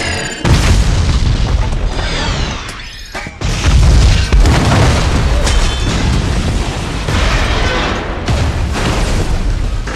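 Movie sound effects of Green Goblin pumpkin bombs exploding, with music underneath. There is a sudden blast about half a second in, a falling high whine near three seconds, then a louder blast with low rumble.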